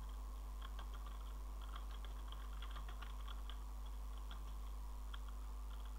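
Computer keyboard being typed on: faint, irregular key clicks coming in quick runs, over a steady low hum.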